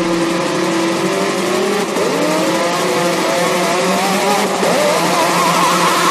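Beatless build-up of a hardcore electronic track: rising, swooping and wavering pitched sweeps over a steady noisy wash and a low hum.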